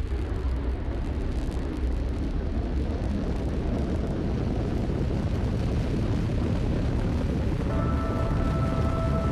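Falcon 9 rocket's nine Merlin 1D engines at liftoff, a loud steady rumble heaviest in the low end. About eight seconds in, ambient music with held tones fades in over it.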